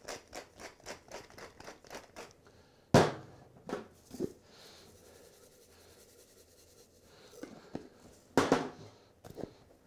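Hand-twisted salt mill grinding, a run of short clicks about four a second for the first two seconds. Then one sharp knock about three seconds in, and a short rattling burst of a spice shaker being shaken near the end.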